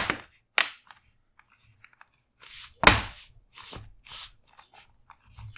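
Plastic bottom cover of an Acer Swift X laptop being pressed onto the chassis, its clips snapping into place with a few sharp clicks, the loudest about three seconds in, between softer rubbing and handling noises.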